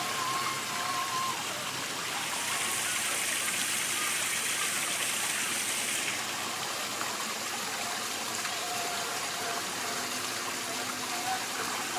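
Steady rushing of a valley stream, a little brighter for a few seconds in the first half, with a faint whine from the RC crawler's electric drive at the start and again near the end.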